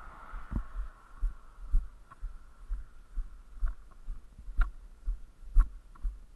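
Footsteps of a person walking on a paved road shoulder: dull low thuds about twice a second, a few with a sharper click.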